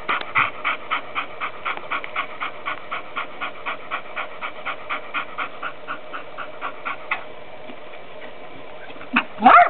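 Pit bull panting rapidly, about four breaths a second, stopping about seven seconds in. Just before the end comes a short, loud sound that glides in pitch.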